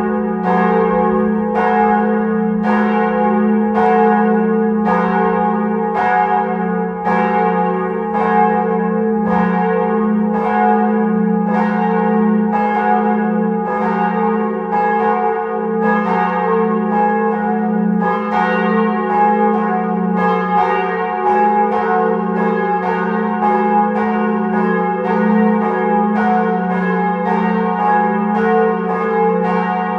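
Church bells ringing, stroke after stroke, each strike ringing on over a lingering hum. The strikes come faster about halfway through.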